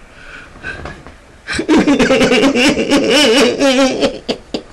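A man's exaggerated, theatrical crying: soft sniffling and whimpering at first, then loud wavering sobs and wails from about a second and a half in, with a laugh-like quiver.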